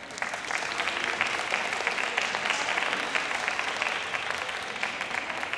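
Audience applauding, starting abruptly and thinning a little near the end.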